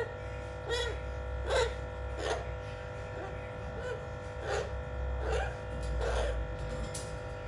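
Blue-fronted Amazon parrot giving a run of short, harsh calls, about one every 0.7 seconds, nine in all.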